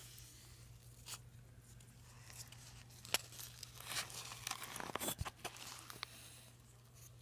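A flat stir stick worked through thick, lumpy paint in a can that had frozen, making wet squelching and scraping sounds with scattered clicks, busiest in the middle.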